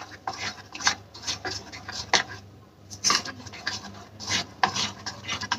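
A spoon stirring thick batter in a ceramic bowl: a string of irregular wet scrapes and knocks against the bowl, loudest about three seconds in and again past four seconds.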